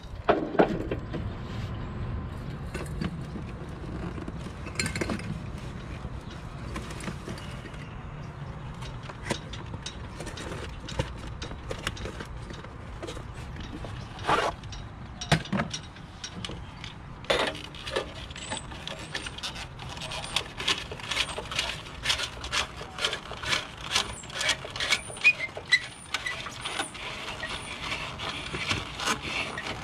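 Handling noise of an LED corn bulb being fitted by gloved hands into a wall-pack light's E39 mogul socket: scattered clicks and scrapes over a low steady rumble at first, then, from a little past halfway, a rapid run of small clicks and scratches as the bulb is worked and screwed in.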